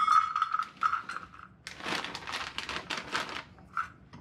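A plastic bag of pecans crinkling as pecan pieces are shaken out into a metal measuring cup: a dense run of quick rustles and light clatters.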